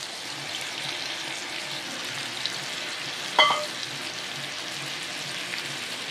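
Eggs coated in a spice paste frying in oil in a nonstick pan: a steady sizzle with light crackling. A single short clink comes about three and a half seconds in.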